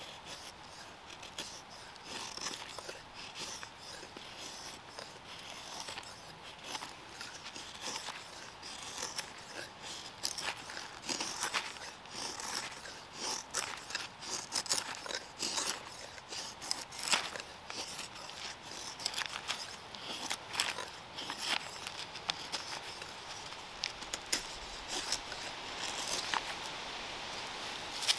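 Dry twigs and kindling snapping and crackling in a Dakota fire pit, many short sharp clicks in quick irregular succession as the fire lay is built and lit.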